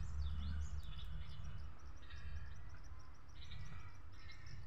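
Faint birds chirping in the background: many short, high chirps repeating throughout, over a low steady hum.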